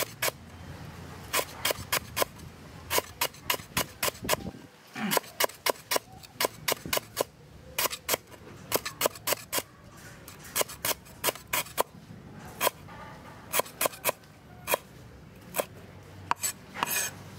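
A cleaver slicing lemongrass stalks into thin rings on a wooden cutting board: a run of sharp chopping knocks, several a second, broken by short pauses.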